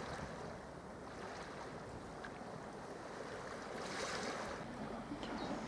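Faint wind on the microphone with small waves lapping at the water's edge, an even rushing noise that swells a little about four seconds in.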